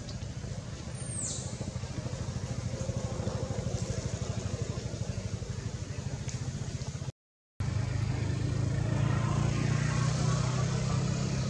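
A steady low engine drone with outdoor background noise. It drops out to silence for about half a second partway through and comes back louder. A brief high falling whistle sounds about a second in.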